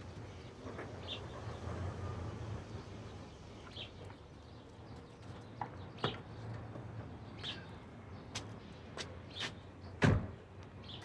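A car's engine rumbling low as it pulls up and stops, then a few small clicks and a car door shutting with a thud near the end. Brief bird chirps come and go.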